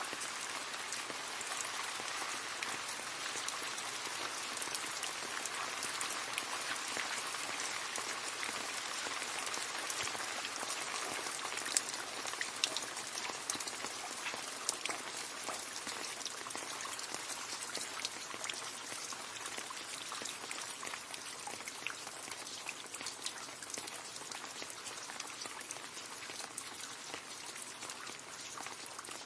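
Steady rain splashing into a puddle, a dense hiss full of small drop splashes, thinning a little toward the end.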